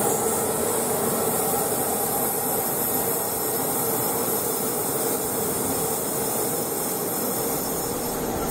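Softronic Phoenix electric locomotive running light and moving away along the track, a steady noise with a faint constant hum that slowly gets quieter.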